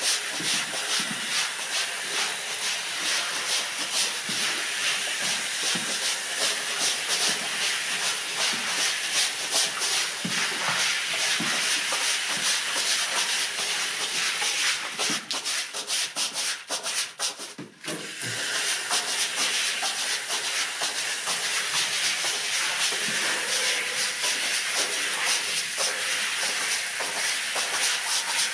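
Stiff long-handled brush scrubbing a wet, soapy rug in quick repeated strokes, a wet swishing hiss. The scrubbing breaks off briefly about halfway through, then resumes.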